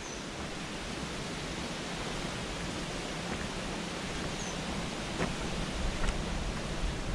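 Steady rushing outdoor noise of wind and rustling on a camera carried on a walk, with a few faint ticks, two short high chirps, and low wind rumble rising near the end.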